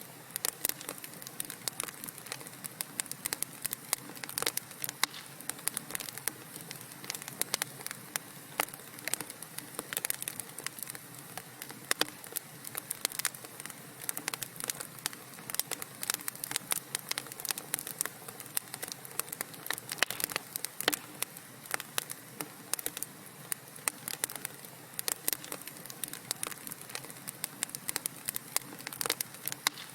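Wood fire crackling in a fireplace: many irregular sharp pops and snaps over a steady soft hiss.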